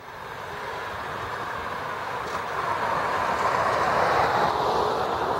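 Road traffic noise on a bridge: a passing vehicle's tyres and engine, swelling to its loudest about four seconds in and then easing.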